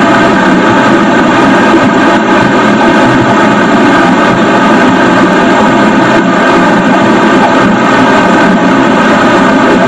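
Tsuâ-Ing 5 hybrid rocket engine (nitrous oxide with thermoplastic fuel, about 13 kN thrust) firing on a static test stand: a loud, steady rush of exhaust noise with a set of steady tones running through it, unbroken through the burn.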